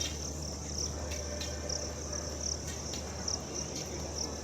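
Crickets chirping in a steady high-pitched rhythm, about two chirps a second, over a low steady hum, with a few faint clicks.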